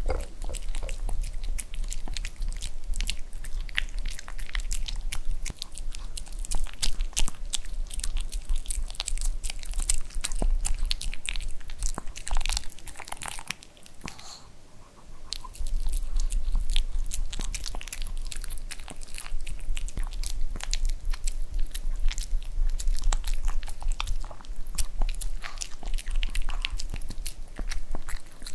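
Pomeranian eating soft fresh-cooked dog food from a ceramic bowl: close, wet chewing, smacking and licking sounds, with a short pause about halfway through as it gulps and licks its lips.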